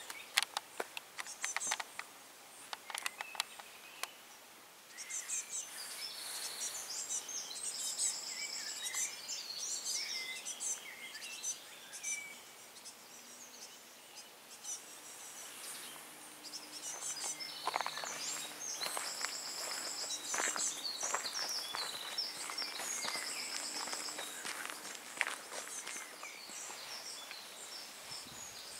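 Footsteps for the first few seconds, then songbirds singing, with many short repeated chirping phrases that overlap and carry on throughout.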